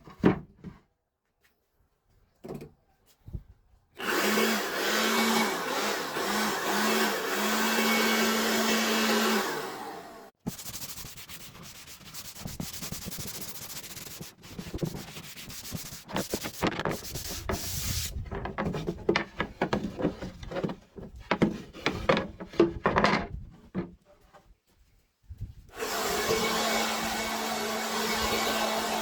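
Electric power tool working wood. Its motor runs with a steady hum and noise for about six seconds, stops, and then comes back near the end. In between come rubbing and scraping on the wood and then a run of separate taps and knocks.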